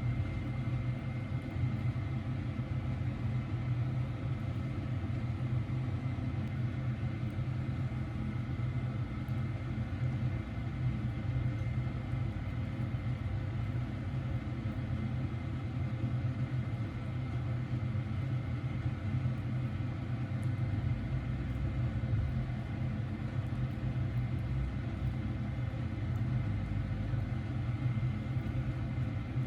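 Steady low machine hum with faint steady whining tones above it, unchanging throughout.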